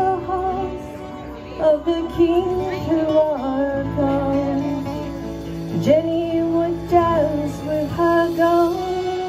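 A woman singing a ballad in long held notes, accompanied by guitar.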